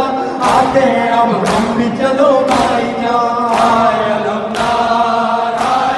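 A Shia noha (mourning lament) sung by a male reciter over a microphone, with a large crowd of mourners chanting along in unison. The crowd's chest-beating (matam) strikes together in a steady rhythm about once a second.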